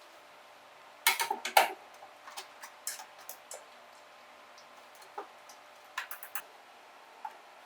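Scattered clicks and light knocks of objects being handled, with a quick cluster about a second in and another around six seconds over a quiet background.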